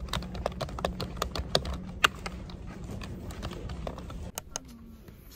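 Typing on a low-profile computer keyboard: a quick, irregular run of key clicks that thins to a last couple of taps about four and a half seconds in. A low steady hum lies under the typing and cuts out about four seconds in.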